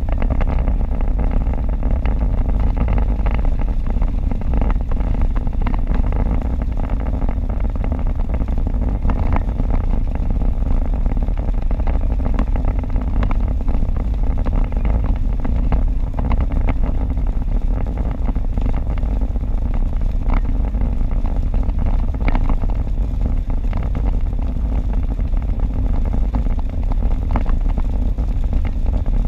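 Steady low rumble of road and engine noise inside a car's cabin at highway speed on wet pavement, with scattered light ticks of raindrops hitting the windshield.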